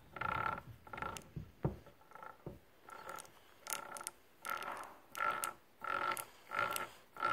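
Brushcutter gearhead's gears whirring in repeated short bursts, about one and a half a second, as the shaft is spun round, getting louder in the second half. There are a couple of low knocks in the first few seconds.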